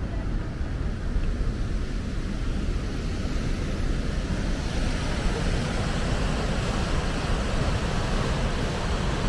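Steady rushing roar of whitewater rapids and the waterfall at Ohiopyle Falls on the Youghiogheny River, growing a little brighter and hissier about halfway through.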